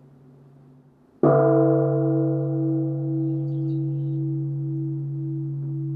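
Bonshō, a large bronze Japanese Buddhist temple bell, struck once by its wooden striking beam about a second in, then ringing on in a deep, slowly fading hum with a wavering overtone. Before the strike, the hum of the previous stroke is still faintly dying away.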